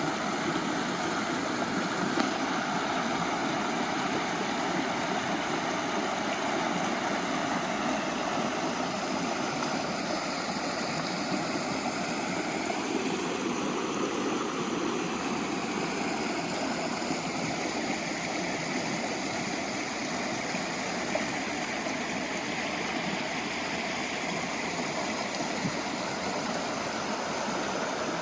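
Running water of a stream, a steady rush without change.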